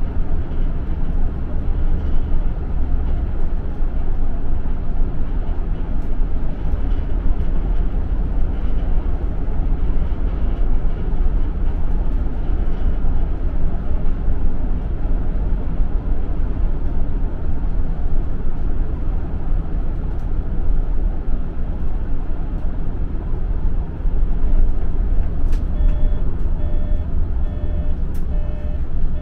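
Steady low rumble of a running vehicle. Near the end a repeating electronic beep starts, about two a second.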